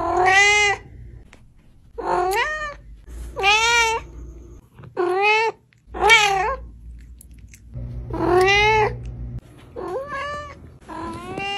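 Cats meowing: about eight separate meows, each under a second long, each rising and then falling in pitch.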